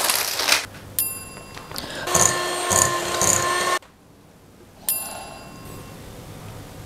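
A bell-like ding about a second in, with its clear high tones ringing on. A loud whirring noise runs from about two seconds in and cuts off suddenly just before four seconds, then a second ding about five seconds in fades away slowly.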